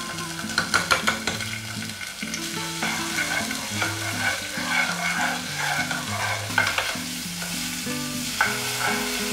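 Thai red curry paste sizzling in oil in a small non-stick pan while a spatula stirs and scrapes it. A few sharp clicks of the spatula against the pan come about a second in.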